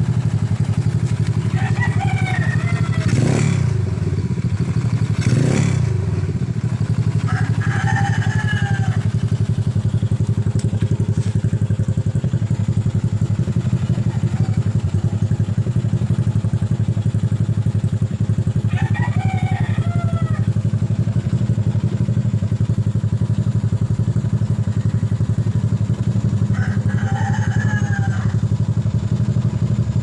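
Neptune 125 motorcycle engine idling steadily through an aftermarket muffler, with two short throttle blips about two seconds apart a few seconds in.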